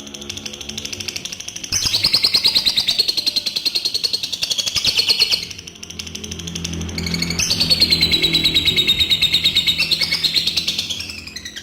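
Adult lovebird singing its long 'ngekek' chatter: long unbroken runs of rapid, high chattering trills. There is a softer run at first, then two loud runs of several seconds each with a short dip between them.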